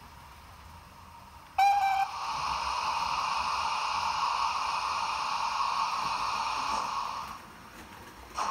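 Sound-fitted model of BR Standard Class 9F steam locomotive 92220 Evening Star: a short, loud steam whistle about a second and a half in, then a steady hiss of steam for about five seconds that dies away, with a brief puff of hiss near the end.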